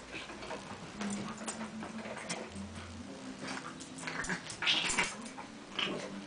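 Two dogs play-fighting over a toy: a dog's low, drawn-out growl-like sound, then sharp, louder bursts of yaps and scuffling about four and a half to five seconds in.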